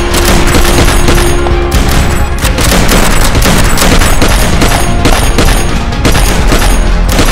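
Rapid gunfire sound effects, many shots in quick succession, laid over loud action music as a Nerf blaster is fired.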